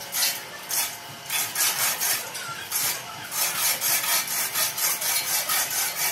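Rhythmic rasping, scraping strokes of metal, in quick runs of several strokes a second with short gaps between the runs.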